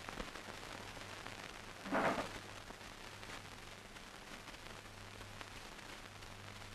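Faint steady hiss and a low hum from an old film soundtrack, with one short, louder sound about two seconds in.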